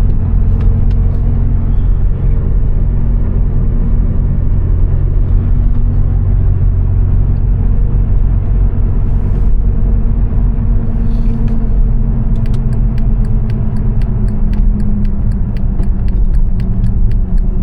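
Steady engine and road drone of a VW Jetta cruising in fifth gear, heard inside the cabin, with its pitch sagging slightly late on. About three quarters of the way through, an even ticking starts, roughly three ticks a second, like a turn signal.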